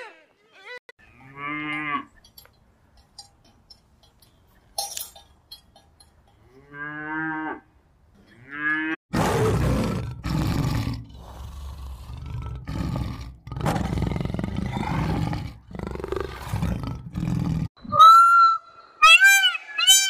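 A sequence of animal calls. First a fallow deer buck gives a few short, pulsed, low groans. Then a big cat makes loud, rough growls and roars in repeated bursts for about eight seconds. Near the end an Indian peacock gives loud, shrill, arching calls, several in quick succession.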